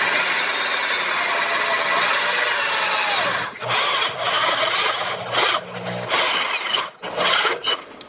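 Electric drill spinning a step drill bit through the thin wall of a square steel tube: the motor's whine and the rasp of the bit cutting metal, with the pitch rising and falling as the speed changes. It stops briefly about three and a half seconds in and again near the end, then runs a moment more.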